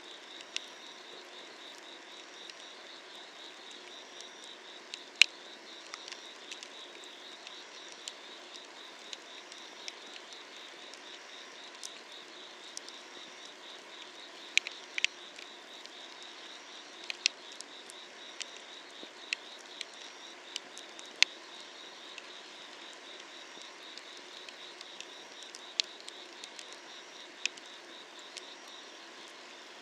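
Burning firewood crackling, with sharp pops at irregular moments, the loudest a little after five seconds and near 21 seconds. Behind it, insects chirp in a steady, fast pulsing chorus.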